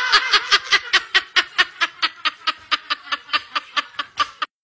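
A person laughing in a long run of quick, even 'ha-ha-ha' pulses, about six or seven a second. It is loudest at first, fades gradually, and cuts off abruptly near the end.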